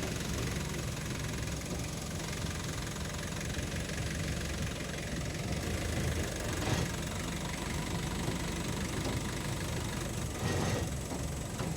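A vehicle's engine running steadily during a ride, with a low, even hum.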